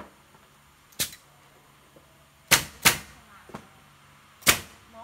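Pneumatic nail gun firing nails into wooden pallet slats: four sharp shots, one about a second in, two in quick succession about halfway, and one near the end.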